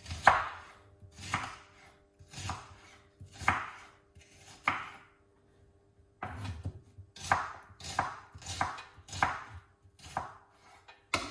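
Knife chopping a white onion on a cutting board in single strokes, about one a second, pausing briefly midway and then coming a little quicker.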